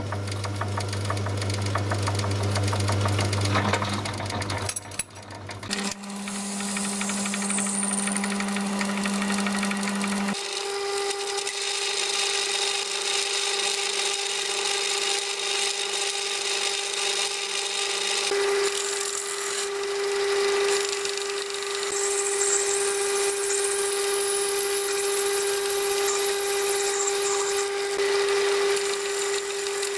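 Myford lathe running while a phosphor bronze piston blank is centre-drilled, tapped and turned. The motor hum is steady but steps abruptly to a different pitch twice, about five and ten seconds in, then holds one steady tone.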